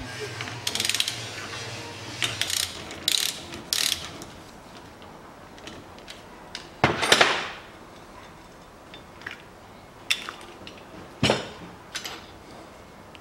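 Ratchet clicking in several short bursts while turning the top nut of a front strut shaft. A louder metallic clatter comes about halfway through, and a sharp knock follows near the end.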